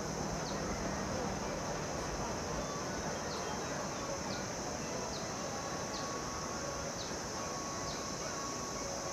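Mountain forest ambience: a steady high-pitched insect drone, with short falling chirps repeating about once a second from about three seconds in, over a low rush of noise.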